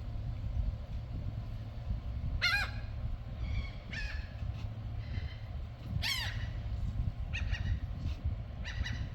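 A bird calling about five times in short pitched calls, the louder ones falling in pitch, over a steady low rumble.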